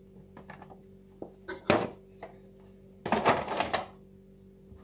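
Aluminium foil baking tray being handled: light clicks and taps, a sharper knock a little under two seconds in, and a crinkly rustle about three seconds in, over a faint steady hum.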